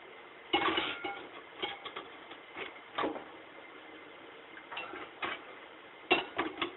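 Metal clutch-pack parts of a 700R4 automatic transmission clinking and clanking as they are handled and set down. There is a louder clank about half a second in, scattered clicks through the middle, and a quick run of sharp clinks near the end.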